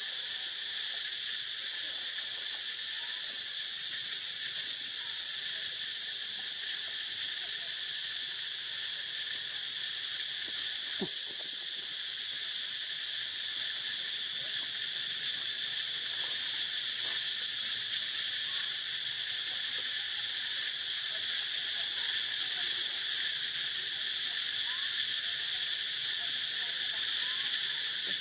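Steady chorus of insects, a continuous high-pitched drone that swells slightly near the end, with one sharp click about eleven seconds in.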